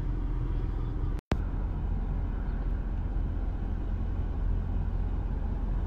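Steady low rumble of vehicle engines and road traffic, with no distinct events; the sound cuts out for an instant about a second in.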